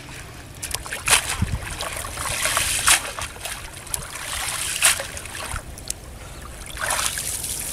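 Shallow river water splashing and sloshing as a fishing net is dipped and swished in it, with sharp splashes about a second in, around three and five seconds in, and a longer slosh near the end.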